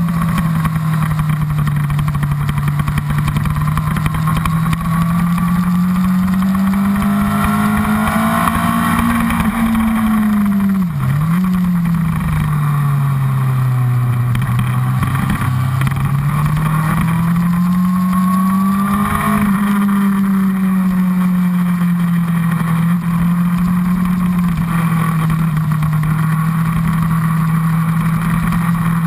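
Honda CBR1000RR's inline-four engine pulling a motorcycle around a race track, heard close from the fuel tank over a constant rush of wind. The engine pitch rises and falls with the throttle through the corners, dips sharply and briefly about eleven seconds in, and holds steady for the last several seconds.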